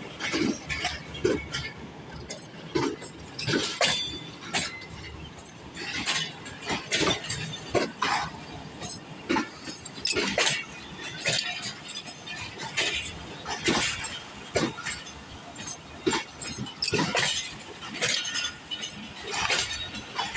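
Passenger train's wheels and couplings clanking over rail joints and points as the coaches roll past, in irregular sharp metallic clinks and knocks over a low rumble.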